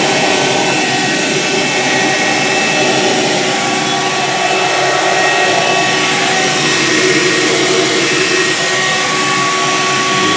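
Handheld vacuum cleaner's motor running steadily, a rush of air with a whine at several steady pitches on top. It is running but not sucking anything up.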